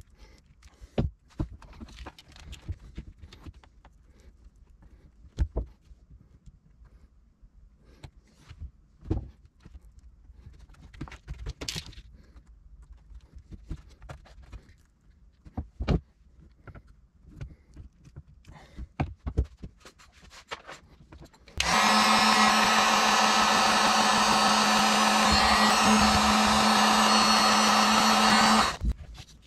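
Small clicks and handling noises from crimping a blue butt connector onto bilge pump wires. About 22 seconds in, a heat gun switches on and runs with a loud, steady blowing hum as it shrinks the connector's sleeve, cutting out briefly near the end.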